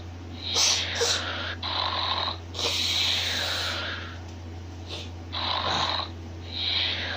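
Snoring sound effect: a run of about six raspy snoring breaths, each roughly a second long, the one near the middle longer with a falling whistle.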